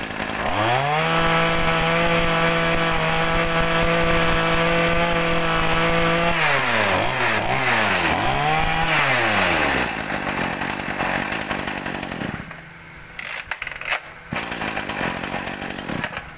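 Kioritz 27cc two-stroke brush cutter engine revved from idle up to full throttle and held there for about six seconds. The throttle is then let off and blipped twice, and the engine runs at idle until it quietens about twelve seconds in.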